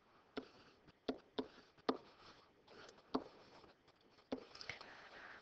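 A few faint, light taps and scratches of a stylus on a tablet screen while handwriting numbers.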